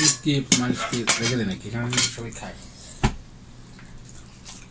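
Stainless steel dishes clinking as a steel bowl is tipped over steel plates to serve food, with sharp clicks, a strong knock about three seconds in, and quieter after.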